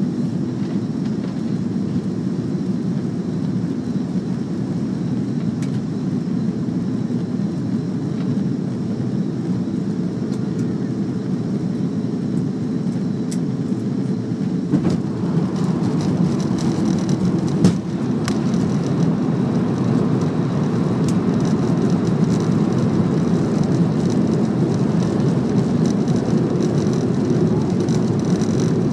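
Steady cabin noise of a jet airliner on its landing approach: engine and airflow noise heard from inside the cabin. About halfway through it grows somewhat louder, with a thin high whine.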